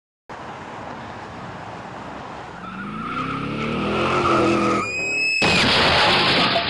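Vehicle engine running, its pitch rising as it speeds up, then a short high tire squeal about five seconds in, cut off by a sudden loud crash of impact and scraping noise.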